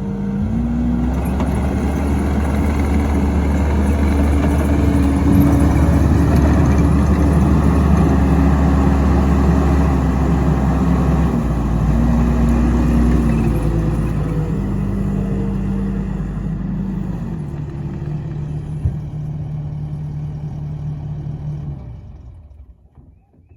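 A machine engine running steadily, its pitch stepping up and down a few times, then dying away near the end.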